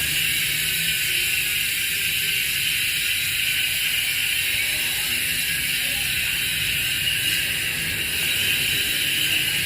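Paps Pro-1 bicycle hub freewheeling, its freehub pawls ratcheting so fast that they merge into a steady, loud buzz. The seller calls it noisy (maingay), louder than hubs with 6 pawls.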